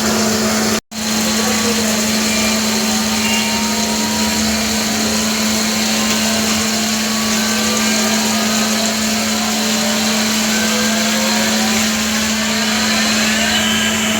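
CNC lathe running through a turning cycle on D2 tool steel: a steady machine hum over a continuous whirring hiss, with faint tones rising in pitch near the end. The sound cuts out completely for an instant about a second in.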